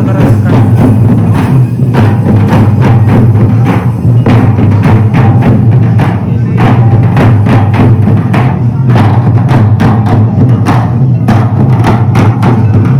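Loud live drumming on long double-headed barrel drums beaten by a troupe of Santali dancers: fast, rhythmic strokes that keep going without a break.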